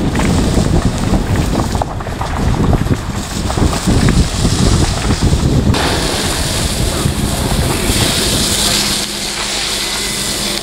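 Wind buffeting the microphone. About halfway through it gives way to the steady hiss of a firefighter's hose spraying water onto smouldering brush, and a low steady hum joins near the end.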